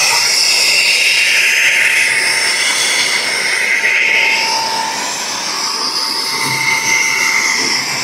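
Agaro Royal cordless mini handheld vacuum cleaner running, its 100-watt motor and suction airflow making a steady high rushing whine as the brush nozzle sucks up debris along a floor edge. The rushing note shifts slightly as the nozzle moves over the floor.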